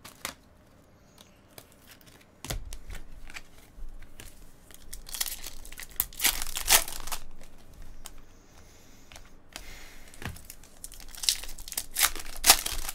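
A foil trading-card pack being torn open by hand, its wrapper crinkling in two loud spells: about five seconds in, and again near the end.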